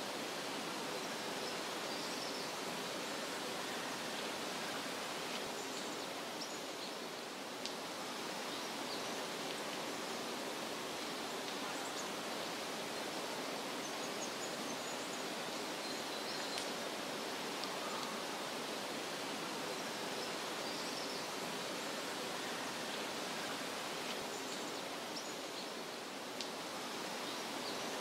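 Steady rushing outdoor nature ambience that eases slightly twice, with faint high chirps here and there.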